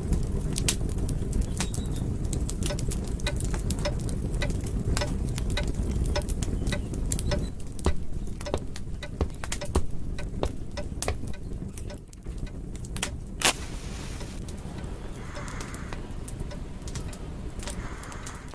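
Wood fire crackling in a fireplace: irregular sharp pops and snaps over a low steady rumble, the pops thinning out about twelve seconds in.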